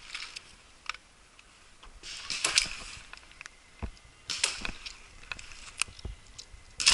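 Rustling and knocking of a paintball player's gear and body moving behind wooden bunkers, with scattered sharp pops and two noisy rustling bursts about two and a half and four and a half seconds in.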